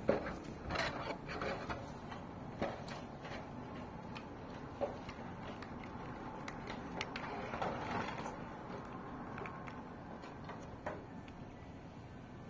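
Irregular clicks and rustles of a plastic toy figure and its packaging being handled. The clicks are busiest in the first few seconds and again around eight seconds in, then thin out.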